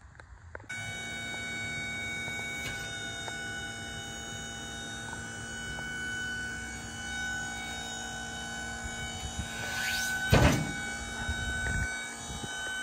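Portable band sawmill running steadily, a constant machine hum with several high steady whining tones, starting abruptly about a second in. A brief louder rush comes around ten seconds in, and near the end the pitch falls as the machine slows.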